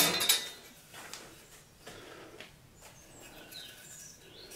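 Wooden workpiece picked up and handled: a short knock and rub of the board at the start, then faint handling noises.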